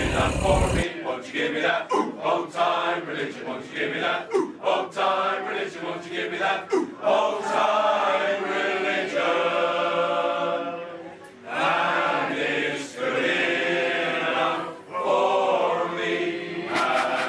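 Male voice choir singing a song in harmony, as background music.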